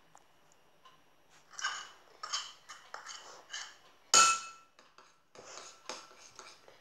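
Metal teaspoon stirring and clinking against a small ceramic bowl, mixing onion juice with honey: a run of short clinks and scrapes, with one louder, ringing clink about four seconds in.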